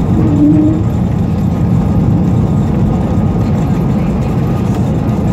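Steady low rumble inside the cabin of an Airbus A220-300 rolling out on the runway after touchdown, spoilers up, heard from a seat over the wing. A brief steady hum sounds near the start.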